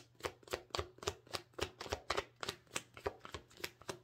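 Tarot cards being shuffled by hand: a quick, even run of soft card slaps, about five a second.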